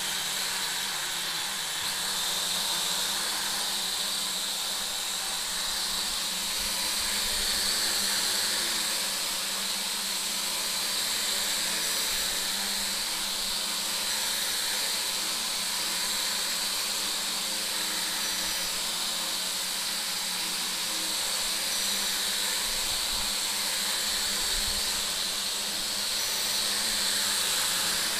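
SY X25 toy quadcopter's four small motors and propellers running with a steady high whir as the drone flies.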